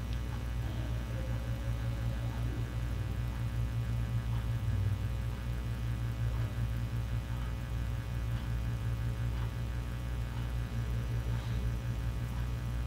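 Steady low electrical hum, with faint soft ticks about once a second.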